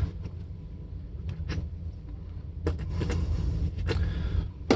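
Cloth rag rubbing over a guitar's finish while polishing, with a few light handling taps, over a steady low hum.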